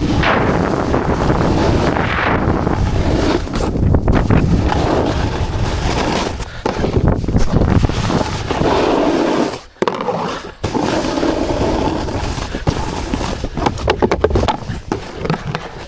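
A rider's edges scraping and sliding over hard-packed snow at speed, with wind rushing over the microphone. The sound drops out briefly twice about ten seconds in, as when the rider leaves the snow.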